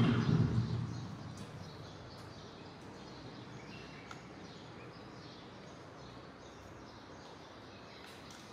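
Outdoor background ambience: a loud low rush of noise in the first second dies away to a steady faint hiss, with a few faint bird chirps.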